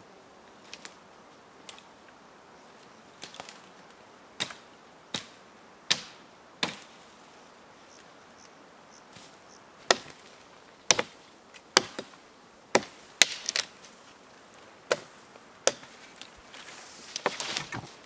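Hatchet chopping the branches off a fallen conifer: a dozen or so sharp chops at uneven intervals of about a second, in two runs. Near the end comes a rustle of cut boughs being handled.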